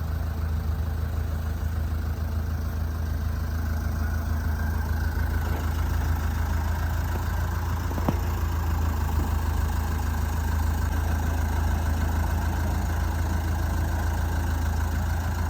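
An engine idling steadily with a deep, even hum; a single brief click sounds about eight seconds in.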